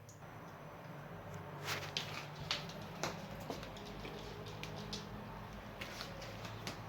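Scattered short clicks and taps from a pet animal moving about, the loudest cluster of them between about two and three seconds in, over a low steady hum.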